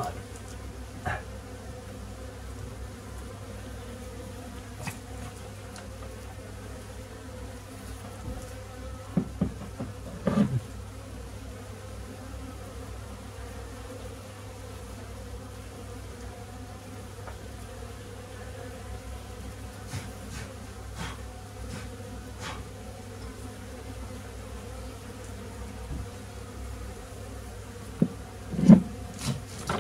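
Honeybees of a small, broodless colony buzzing steadily around an opened wall cavity. A few knocks and bumps come as the comb is worked by hand, in a cluster about ten seconds in and loudest near the end.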